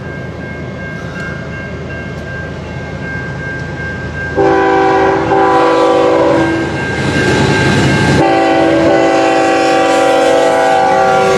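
Multi-chime horn of a CN freight's lead diesel locomotive sounding for a grade crossing: one long blast starting about four seconds in, a brief break, then a second long blast from about eight seconds in, over the low rumble of the approaching train.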